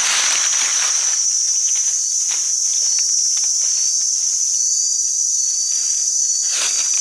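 Steady, high-pitched chorus of forest insects filling the air, with a couple of brief rustling noises at the start and shortly before the end.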